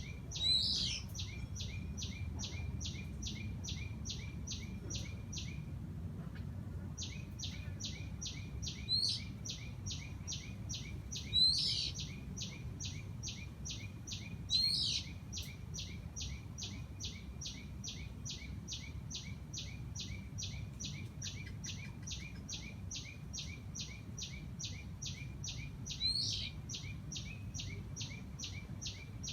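Birds calling in a garden: a high, rapid pulsed trill repeating at about three to four pulses a second, breaking off for about a second early on, with five loud sharp bird calls over it. A low steady rumble runs underneath.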